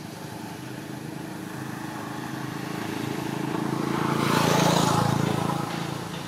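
A motor vehicle passing by: engine and tyre noise grows steadily louder, peaks about four and a half seconds in, then fades away.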